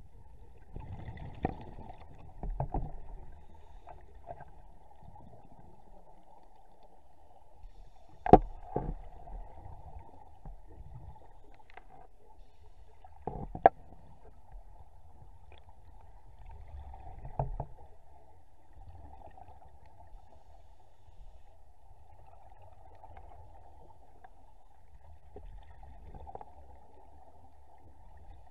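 Muffled underwater ambience through a camera's waterproof housing: a steady low rumble and hiss, broken by a few sharp knocks and clicks, the loudest about eight and a half and thirteen and a half seconds in.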